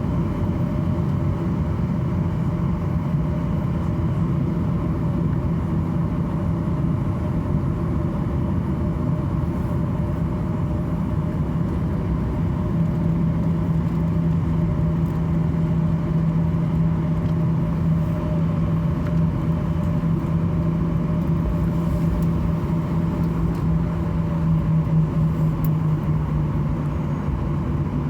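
Steady machinery hum inside the cabin of a Boeing 737-800, a low drone with a constant tone that grows stronger about halfway through and drops slightly in pitch near the end.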